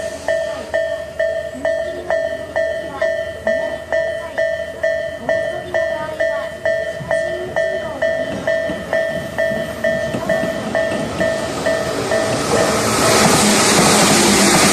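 Japanese railway level-crossing alarm ringing, a repeated electronic bell stroke a little under twice a second. About twelve seconds in, a Tokyu 8500 series electric commuter train comes through the crossing, and its passing noise grows louder and covers the bell.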